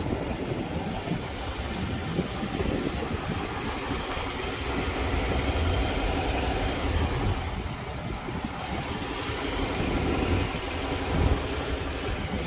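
A car engine idling steadily with a low, even rumble.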